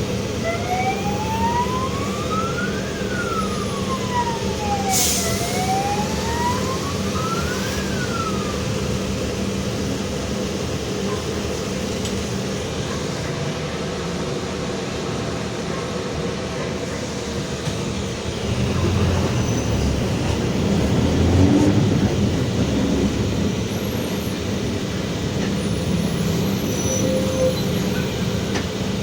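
Mercedes-Benz OF-1721 bus running steadily, its drone swelling louder about two-thirds of the way through; the bus's differential growls, by the uploader's account. A siren wails in the first third, rising and falling in pitch twice.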